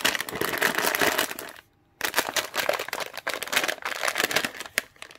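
A cat clawing and biting a plastic cat-treat pouch, making rapid crinkling and rustling, with a brief gap of quiet a little under two seconds in.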